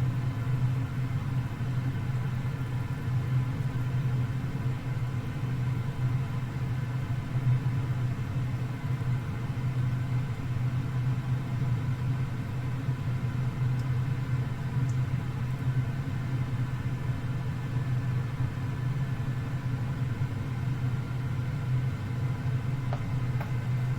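A steady low mechanical hum that runs without a break, with a few faint steady higher tones over it.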